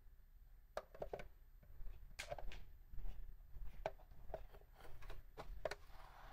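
Footsteps of someone walking in block-heeled sandals, a string of light heel knocks about one every half second.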